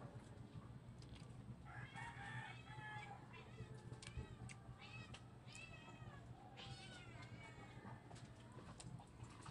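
A series of faint, short animal calls, each rising and falling in pitch, clustered about two seconds in and again around four to seven seconds in, over a low steady hum.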